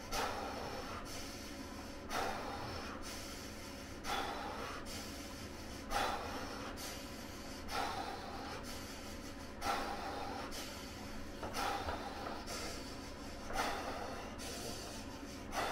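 A man's deep, rhythmic breaths through the mouth, about one every two seconds, each sharp at the start and trailing off, as he copes with ice-cold bath water using controlled breathing.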